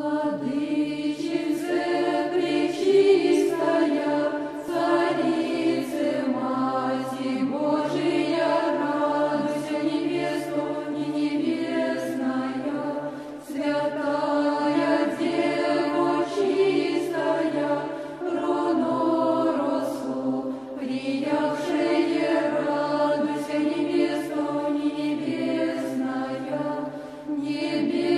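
Men's choir chanting a slow melody over a low drone note held beneath it, in Orthodox Byzantine style, with short breaks between phrases.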